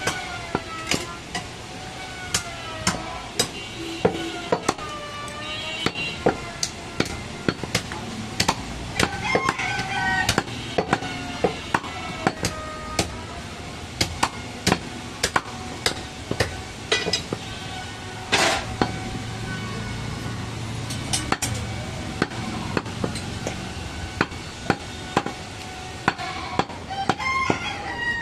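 Sharp, irregular chops of a butcher's cleaver striking goat meat and bone on a wooden stump chopping block, sometimes several a second. Behind them, background music with a wavering melody.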